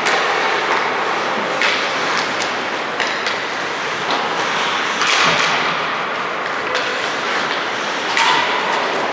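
Game noise in an ice arena: steady rink and crowd noise with scattered knocks and thuds from sticks, skates and the boards, and short scraping hisses.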